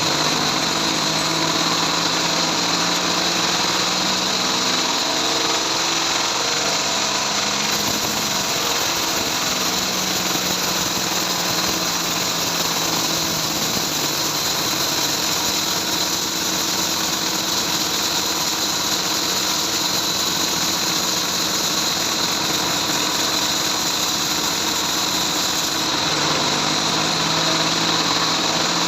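Bandsaw mill running steadily, its motor note shifting about eight seconds in and again near the end.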